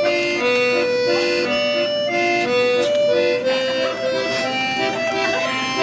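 Instrumental music: a melody of held notes, each changing about every half second, over a steady accompaniment.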